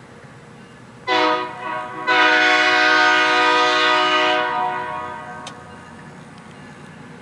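Locomotive air horn sounding for a road crossing: a short blast about a second in, then a long blast from about two seconds that fades away a little before halfway. The horn sounds several notes at once, over a low steady rumble from the train.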